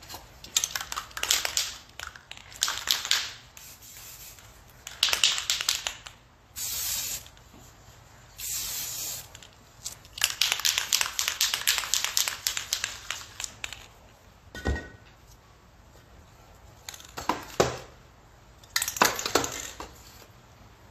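Aerosol spray paint can sprayed in a series of short hissing bursts, with a longer burst of about three seconds starting about ten seconds in. A single sharp knock comes between bursts.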